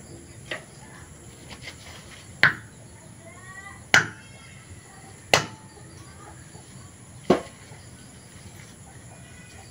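Golok machete with a duralumin handle knocked butt-first onto a stone block to drive the handle down onto the tang: a light tap, then four sharp knocks about one and a half seconds apart, each with a short metallic ring.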